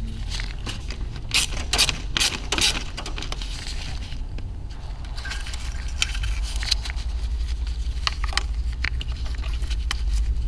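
Gloved hands handling the plastic evap hoses and fittings at the purge regulator valve: scattered clicks, scrapes and rustles, busiest a couple of seconds in and again in the second half, over a steady low hum.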